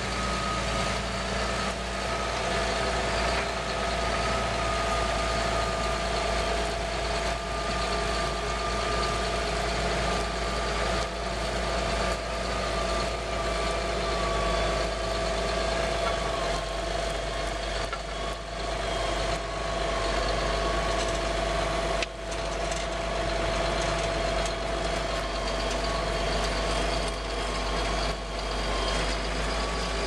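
Massey Ferguson tractor's diesel engine running steadily under load while pulling a reversible plough, with a steady high whine over the engine note.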